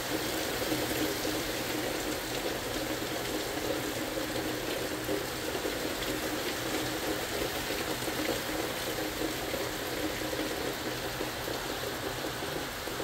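Heavy tropical-storm rain falling steadily, an even, unbroken hiss of water.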